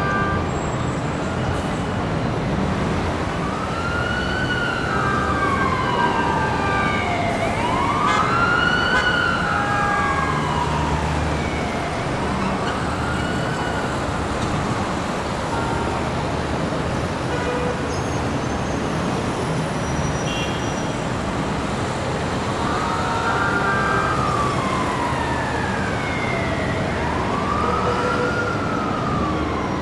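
Busy city street traffic noise, a steady rumble and hiss, with an emergency-vehicle siren wailing in slow rising-and-falling sweeps. The siren sweeps several times, drops out for a while in the middle, then returns near the end.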